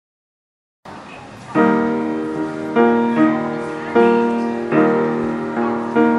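Background music: after about a second of silence, keyboard chords struck roughly once a second, each ringing and fading before the next.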